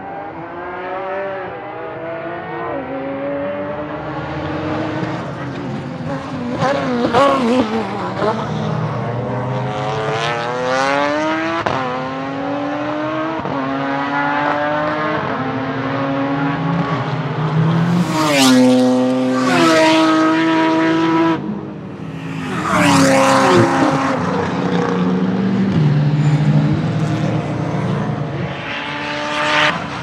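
Race car engines on a circuit accelerating hard and shifting up through the gears as they pass, the note rising and then dropping at each shift, with a few short sharp cracks along the way.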